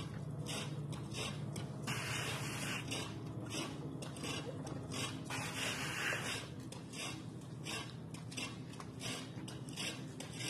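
Garden hose spraying water onto a car's body in hissing spells of about a second, near two seconds in and again around six seconds in, with splashing and dripping between. A steady low hum runs underneath.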